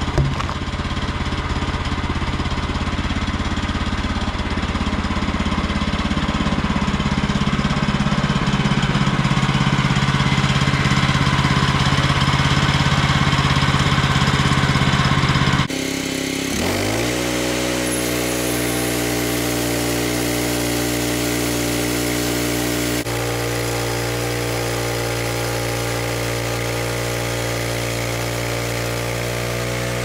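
Portable band sawmill's gasoline engine running under load as the band blade cuts a frozen red oak log, with steady noise from the cut over the engine. About halfway through the cut ends and the engine drops to a lower, steady speed, its pitch sliding down briefly before settling. The blade is one the sawyer judges worn out after its last resharpening.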